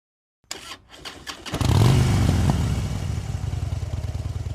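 A few handling clicks, then a vehicle engine starts about a second and a half in and runs steadily with a low, fast pulse.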